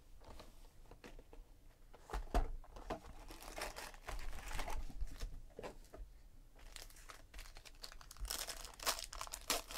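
Cardboard trading-card boxes being handled and opened, with a sharp knock about two seconds in, then the crinkling of a foil-wrapped card pack in the hands, busiest near the end.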